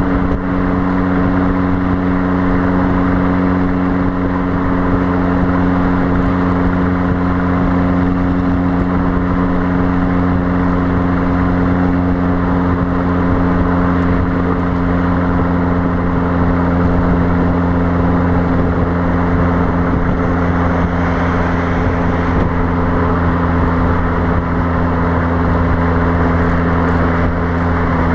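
Fiat Abarth 595's turbocharged 1.4-litre four-cylinder exhaust droning steadily at constant revs while cruising at motorway speed. It is heard close up at the rear of the car, with wind noise on the microphone.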